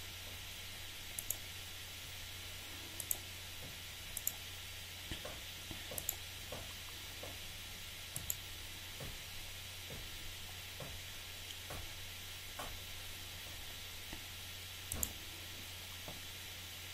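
Computer mouse clicking: short, sharp clicks at irregular intervals of a second or two, over a steady low hiss and hum.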